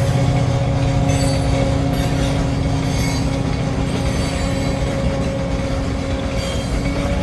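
Escanaba & Lake Superior freight train rolling past: a steady rumble of wheels on rail with a few steady tones held over it.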